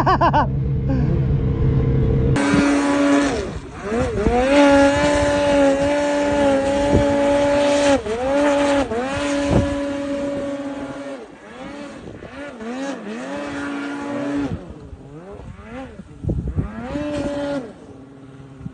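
Snowmobile engine revving in repeated throttle bursts, its pitch climbing and dropping with each blip as the sled churns in deep snow on a steep slope. It grows fainter in the second half, with one more short rev burst near the end.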